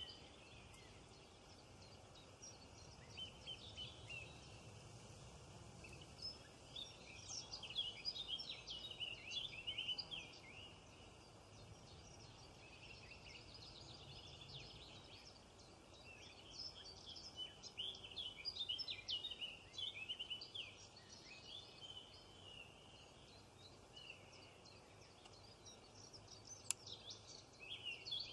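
Many small birds chirping and twittering in a faint, busy chorus, the high chirps coming in clusters over a quiet outdoor background. One sharp click near the end.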